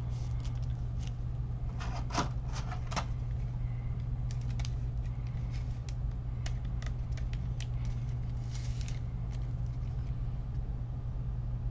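Trading cards and packaging being handled: scattered small clicks and light crinkling over a steady low hum.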